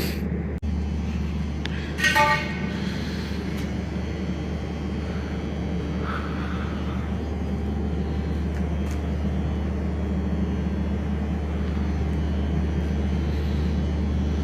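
A steady low machine hum, with a short pitched tone about two seconds in.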